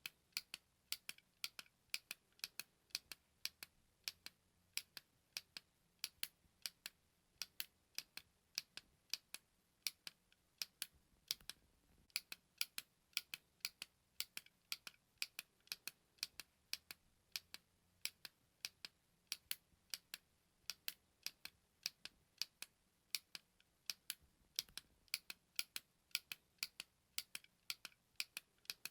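A small push button clicking over and over: sharp, crisp, high-pitched clicks at about three a second, evenly kept up.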